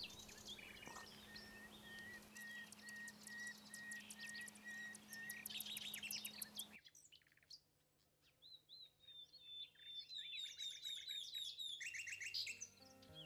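Common nightingale singing, faint: a run of short, evenly repeated whistled notes, then, after a gap of about two seconds, a fast string of high, sweeping chirps.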